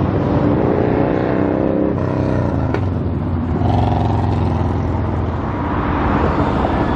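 Car engine and road noise while driving: the engine pitch rises over the first two seconds as the car accelerates, then settles into a steadier low drone.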